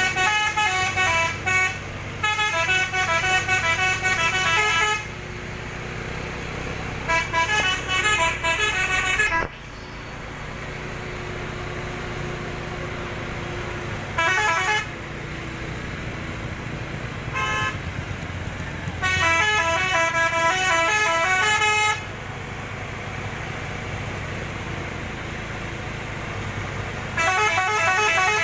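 Modified multi-tone musical horn ("telolet") on a Fuso dump truck, playing quick stepped melodies in repeated bursts, some a few seconds long and some only a short toot. The truck's diesel engine runs steadily underneath.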